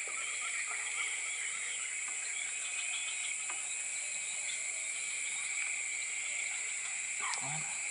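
Steady chorus of insects: a continuous high-pitched drone sitting at two pitches, one shrill and one higher still.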